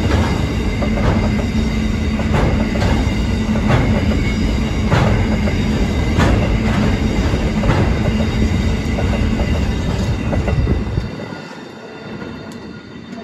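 Empty coal hopper wagons rolling past close by, with a heavy rumble and regular wheel clacks a little over once a second. The rumble drops away as the last wagon passes, about eleven seconds in.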